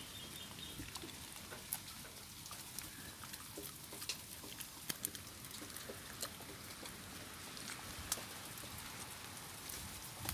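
A Siberian Husky–Shar Pei cross dog chewing a stick, with irregular sharp cracks and crunches of the wood, over a steady hiss of rain.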